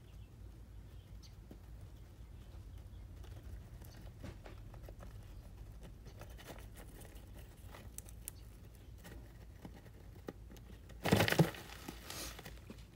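Faint scattered rustles and light scratching from a live feeder rodent moving over coconut-husk bedding, then, about eleven seconds in, a short loud burst of rustling as the ball python strikes and wraps the rodent in its coils.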